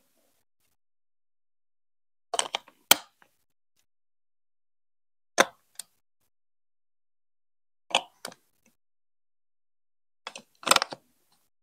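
Plastic Lego Duplo bricks and marble-run track pieces being handled and pressed onto a Duplo baseplate: four short clusters of clicks and knocks a few seconds apart.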